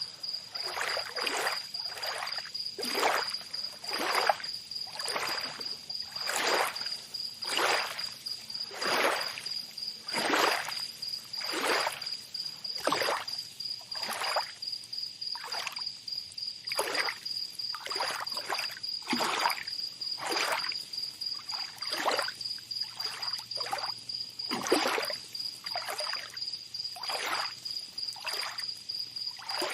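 Tropical beach ambience: small waves lapping on the shore in quick surges about once a second, under a steady, high, pulsing insect trill.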